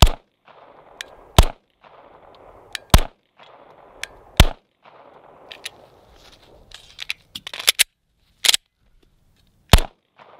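Canik TP9SFL 9mm pistol fired in slow, single shots, six in all, about a second and a half apart, with a longer pause after the fourth. Several lighter clicks and snaps come during the pause.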